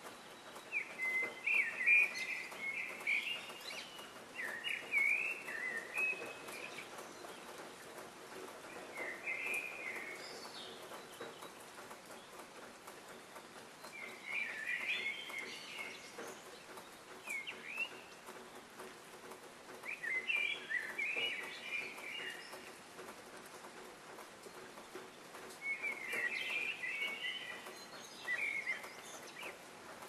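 Small songbirds chirping in short clustered bouts, about six bouts a few seconds apart, over a steady background hiss.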